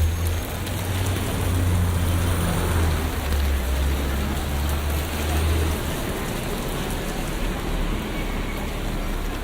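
Steady hiss of rain falling on a city street, with the low rumble of a vehicle engine underneath that drops away about six seconds in.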